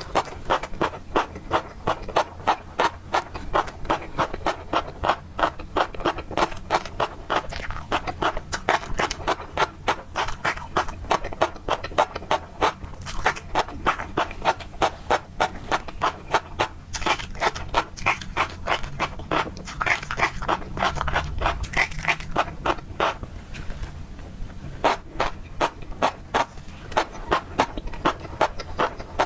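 Close-miked chewing of tobiko (flying fish roe): a fast, steady run of crisp pops and crunches, about three or four a second.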